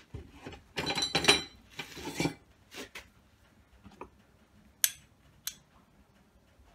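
A cut piece of round steel bar and a metal square being handled on the bandsaw vise and bench: a cluster of metal clinks with a short ring about a second in, another clatter around two seconds, then two sharp clicks near the five-second mark.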